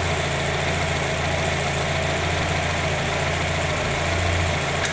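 First-generation Mazda Miata's four-cylinder engine idling steadily, a low even hum.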